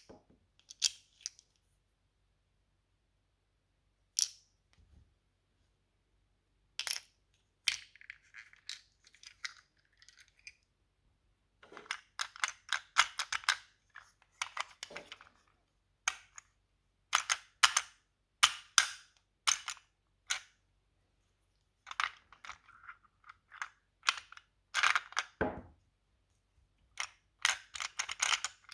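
Small plastic toy playset pieces being handled, giving irregular sharp clicks and taps in quick clusters with silent gaps between.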